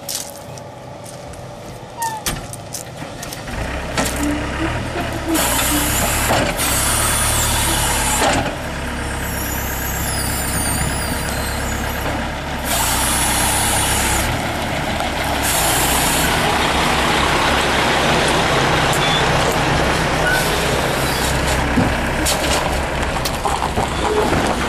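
Skid steer loader engine starting about three and a half seconds in and running steadily, with several loud bursts of high hissing and a wavering whine from the hydraulics as the power angle stone rake is angled and worked.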